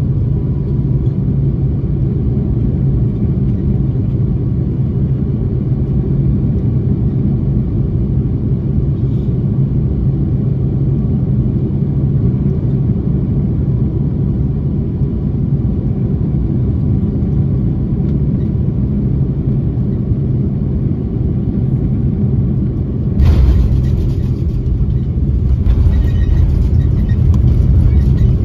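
Airbus A330-300 cabin noise over the wing on final approach: a steady rumble of engines and airflow. About 23 seconds in, the main gear touches down with a sudden jolt of rumble and rattle, and a few seconds later the engines spool up into reverse thrust, growing louder.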